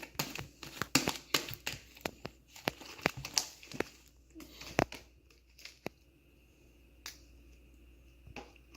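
Fluffy shaving-cream slime being squeezed and kneaded by hand: a run of sharp, wet clicks and pops that thins out after about five seconds.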